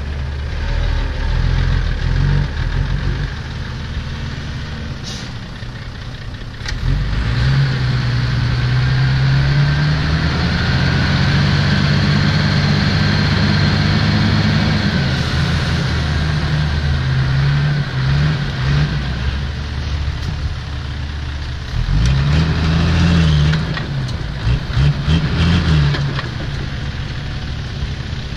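Six-wheel dump truck's diesel engine running while its tipper bed is hoisted to dump soil. The engine revs up about a third of the way in and holds there for several seconds, then settles and is revved up and down several times near the end.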